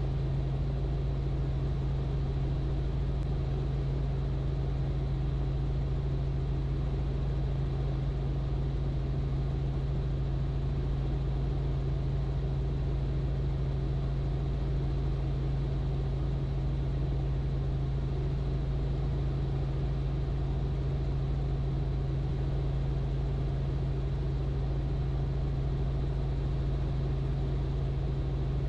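Robinson R44 helicopter in steady flight: the even drone of its engine and rotors heard from inside the cabin, dominated by a constant low hum.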